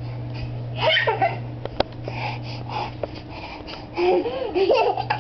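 A toddler vocalizing in high, wavering bursts, about a second in and again from about four seconds in, over a steady low hum, with a few sharp clicks.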